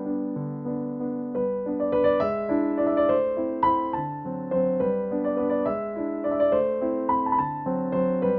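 Background piano music: a melody of short notes over a repeating lower line, filling out with higher notes about a second and a half in.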